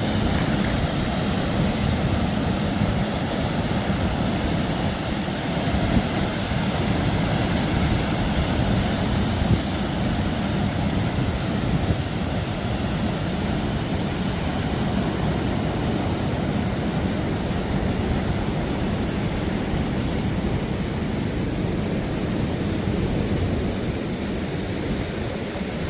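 Ocean surf breaking in a steady, unbroken wash.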